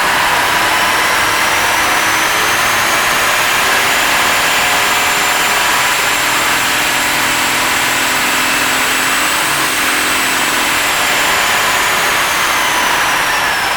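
Yanmar 6CHK-HT six-cylinder marine diesel engine running loudly, with a high whine that climbs slowly in pitch through most of the stretch and falls away near the end.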